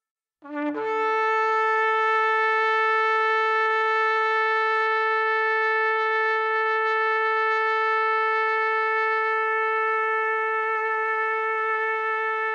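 Shofar (ram's horn) blown in one long held blast: it starts about half a second in with a brief lower note that jumps up, then holds one steady, bright, buzzy pitch.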